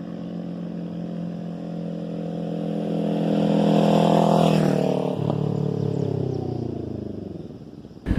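Kawasaki Ninja 400 parallel-twin with a Fuse Racing slip-on exhaust passing by at an even, gentle throttle. It grows louder as it approaches, drops in pitch as it goes past about four to five seconds in, and fades away.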